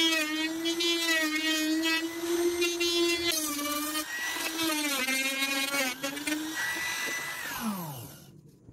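Hand-held Modern trim router running at full speed as it is pushed through a cut, its high whine dipping in pitch a few times under load. About seven seconds in it is switched off and the whine falls away as the motor winds down.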